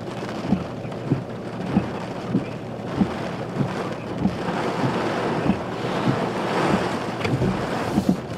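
Wind and rain rushing against a vehicle, with a low thump repeating about every 0.6 s. The rushing swells louder in the middle and later part.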